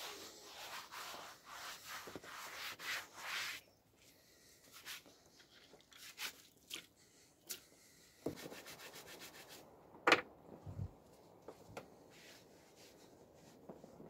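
Faint rubbing and swishing of hands washing in a stainless steel bowl of soapy water, busiest in the first few seconds, with scattered light clicks and one sharper knock about ten seconds in.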